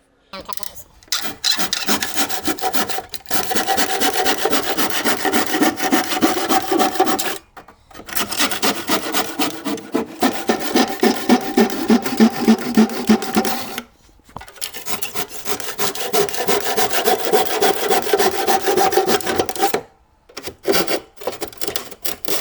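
Handsaw cutting through a wooden cabinet panel with steady back-and-forth strokes, in three long bouts separated by short pauses.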